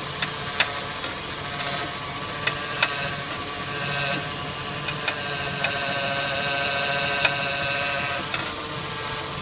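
2002 Jeep Grand Cherokee running, with a steady whine, louder in the middle, and short sharp creaks or pops every second or two as the steering wheel is turned. It is a steering creak of unknown cause on a Jeep with a 4-inch suspension lift.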